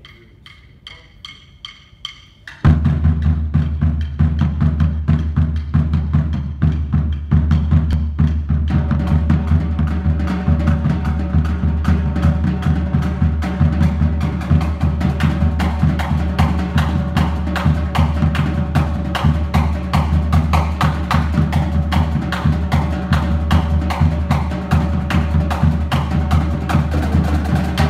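Percussion trio playing a drum cadence on snare drum, bass drum and a mallet keyboard instrument: rapid stick strokes over a steady bass drum beat. Light tapping for the first couple of seconds, then the full cadence comes in loud and keeps going, with sustained pitched notes joining a few seconds later.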